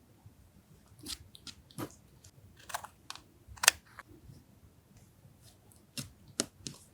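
Paper and stationery being handled while decorating a journal: a series of short, crisp clicks and rustles in small clusters, the loudest about three and a half seconds in.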